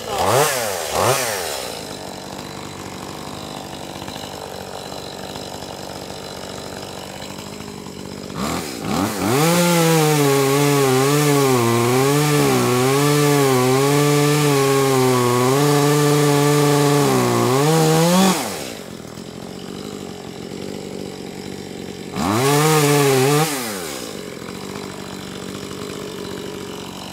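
Echo CS-2511T top-handle chainsaw, a small two-stroke, idling with a couple of quick revs at the start. It is then held at full throttle for about nine seconds while cutting through a fallen limb, its pitch wavering under the load, before dropping back to idle. One more short rev comes near the end.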